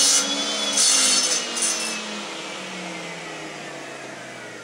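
Table-mounted circular saw winding down after being switched off, its whine falling steadily in pitch and fading. A few harsh hissing bursts in the first two seconds as the sled passes the still-spinning blade.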